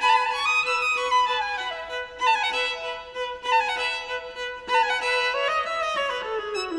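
Instrumental background music: a melody stepping downward in repeated runs over a steady held note.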